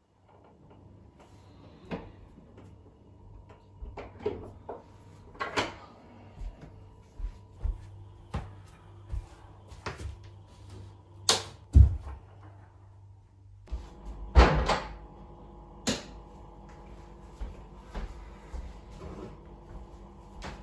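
A door and its handle being worked: a run of clicks, rattles and knocks as a door opens and closes. The loudest thumps come about halfway through and again a few seconds later, over a faint steady hum.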